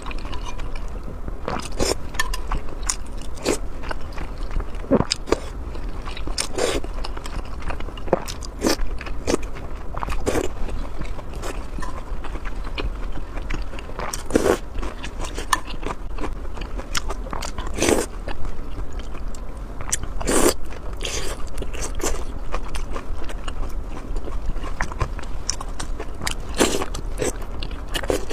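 Close-miked eating sounds: a person biting and chewing food, with irregular crisp clicks and crunches every second or so.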